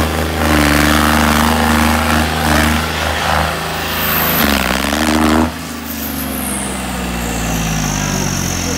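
John Deere tractor's diesel engine revving hard under load, its pitch wavering up and down, then about five and a half seconds in it drops back suddenly to a lower, quieter steady run. A thin high whistle slides down in pitch over the last few seconds.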